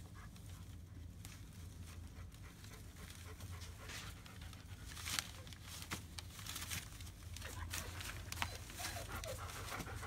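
German Shepherd mother dog panting over her newborn litter, with a few short crinkles of the shredded-newspaper bedding as she moves among the puppies.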